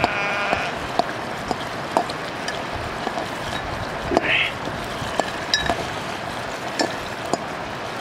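Sheep bleating: one call right at the start and a shorter one about four seconds in. Scattered sharp clicks sound over a steady background hiss.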